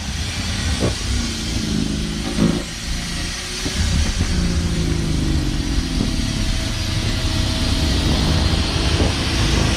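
Engine of a snow-clearing machine running steadily, with a few short knocks.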